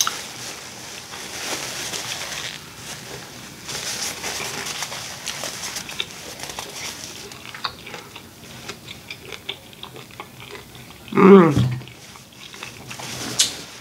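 Close-miked eating noises from a mukbang: wet chewing and lip-smacking with soft scattered clicks and the rustle of a paper napkin being handled. A brief hum of the voice comes about eleven seconds in.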